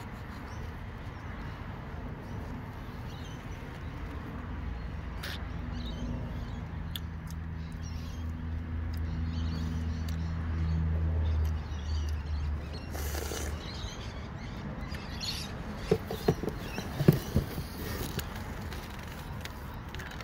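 A low droning hum of an aircraft passing over, building for several seconds and dying away about two-thirds of the way through. Near the end come a few sharp clicks close to the microphone, the loudest sounds here.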